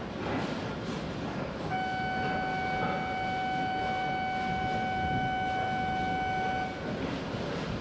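A steady electronic warning tone, held level for about five seconds and then cut off, over the steady background noise of a station platform with a Shinkansen train standing at it. It is the signal sounded as the train's doors close before departure.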